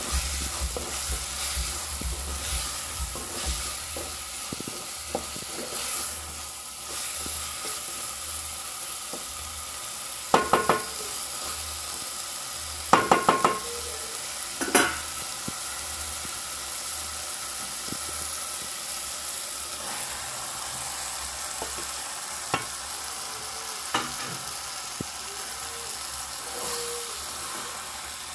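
Food frying in a pan with a steady sizzle, stirred with a utensil that clinks against the pan in a few quick runs of taps near the middle.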